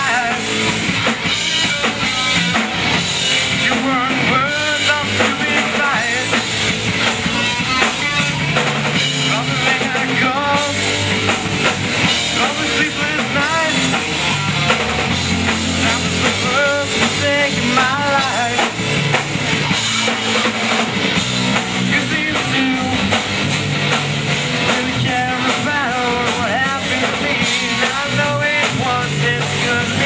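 Rock music played by a band: drum kit, electric guitars and a singer, continuous and loud.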